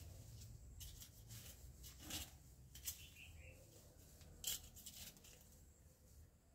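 Faint handling sounds of a person moving about and getting up from a crouch: soft rustling with a few short clicks or taps, the clearest about two seconds in, near three seconds and about four and a half seconds in, over a faint low rumble.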